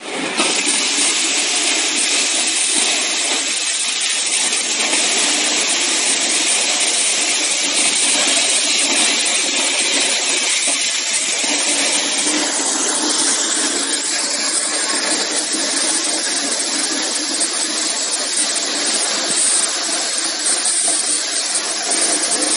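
Small electric corn sheller running while shelling cobs: a loud, steady, noisy whir with no pauses.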